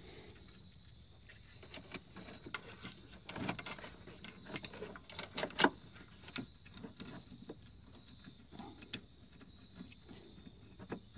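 Scattered light clicks, taps and rustles of plastic wiring connectors and cables being handled and pushed into an engine-bay fuse block, with one sharper click about five and a half seconds in.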